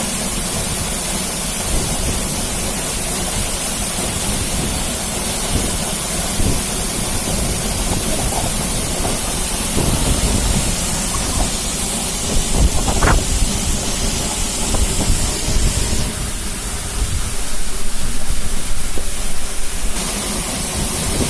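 Waterfall rushing: a steady, loud hiss of falling water, with a low rumble that swells and fades.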